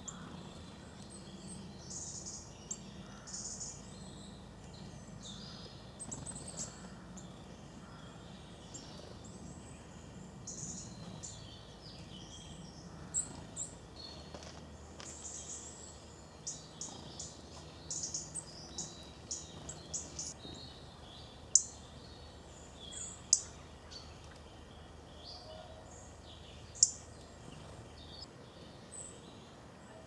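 Small songbirds' short, high chirps and call notes scattered throughout, over a faint low background hum. Three sharp clicks stand out in the second half.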